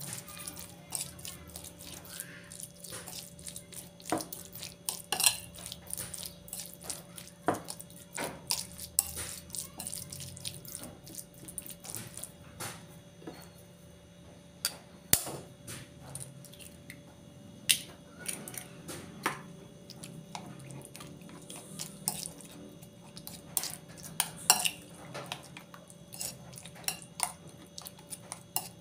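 Metal spoon clinking and scraping against a ceramic bowl in irregular taps while ground chicken is mixed, with one sharp crack about halfway through as an egg is broken against the utensil. A faint steady hum runs underneath.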